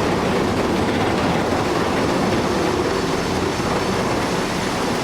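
Heavy machinery running with a steady, dense mechanical rumble.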